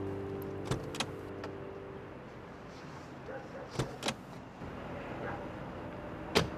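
Car door handling: two pairs of sharp latch clicks, about a second in and about four seconds in, then a louder single knock near the end, like a door being shut.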